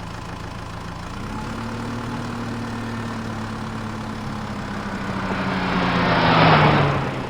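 A vehicle engine sound effect running steadily with a low hum. A rushing noise builds from about five seconds in, is loudest near the end, then fades.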